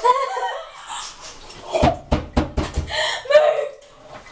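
A quick run of sharp knocks and thuds about two seconds in, between short wordless voice sounds.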